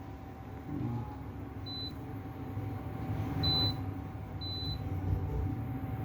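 Induction cooktop's touch control panel giving three short high beeps as its buttons are pressed during a test after repair, over a steady low hum.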